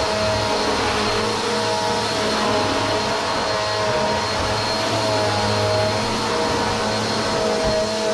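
Upright vacuum cleaner running with a steady motor hum as it is pushed back and forth over a hard floor, vacuuming up loose dirt.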